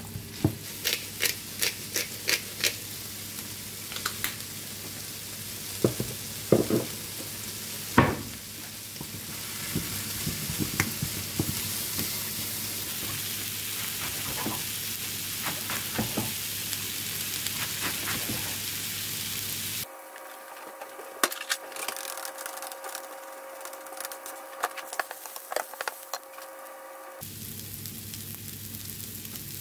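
Sliced onions sizzling in a frying pan, stirred with a wooden spoon that knocks against the pan many times in the first several seconds; the sizzle then goes on alone. About two-thirds of the way through, the sizzle cuts off abruptly, leaving a quieter steady hum with light taps.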